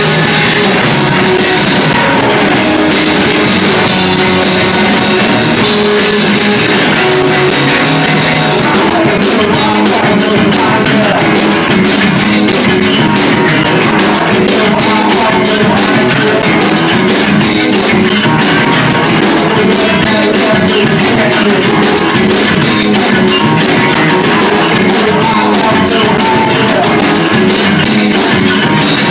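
Rock band playing loudly, with a drum kit driving the music. From about nine seconds in the drumming settles into a fast, steady beat.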